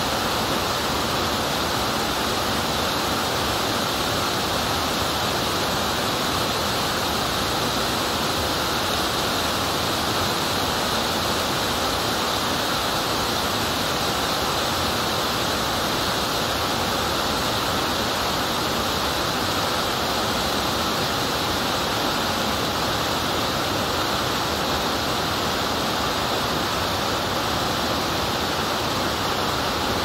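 Steady rush of a waterfall, with water tumbling over rocks in the stream below, even and unbroken throughout.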